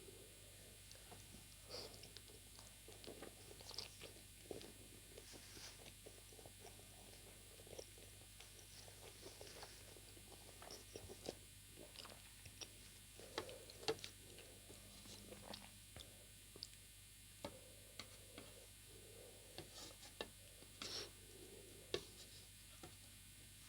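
Faint, close-miked chewing of steamed chicken momos, with irregular soft wet smacks and mouth clicks.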